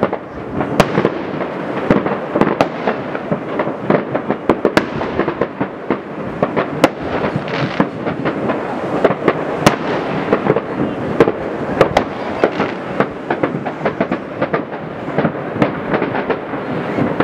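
Many New Year fireworks going off at once: a continuous rumble of bangs, with frequent sharper, louder cracks at irregular intervals.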